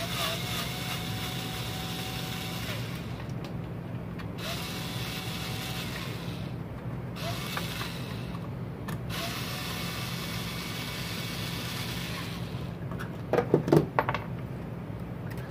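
Screwdriver working out the mounting screws of the ignition coil on a Ryobi two-stroke trimmer engine: a rough grinding sound in several stretches, stopping and starting, over a steady low hum. A few sharp clacks near the end as the coil is lifted free.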